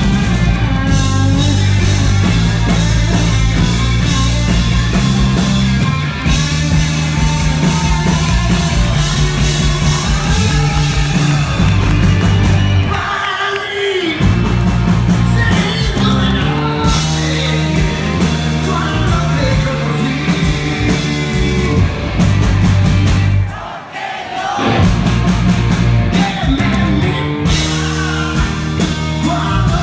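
Live rock band playing: electric guitar, bass and drums with a male lead singer. The low end drops out briefly twice, around 13 and 24 seconds in, before the full band comes back.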